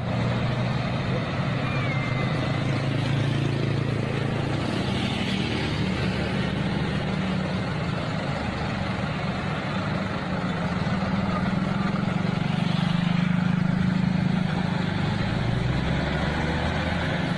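Road traffic: vehicle engines, including a bus, running at a standstill, a steady low rumble with street noise.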